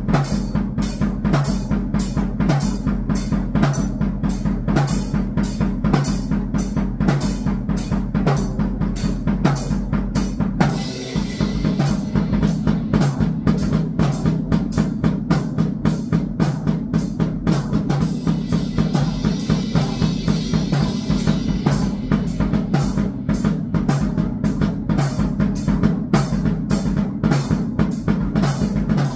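Drum kit played in a fast, steady beat, bass drum and snare hitting about four times a second over a steady low hum. About eleven seconds in the beat dips briefly and a brighter hiss joins.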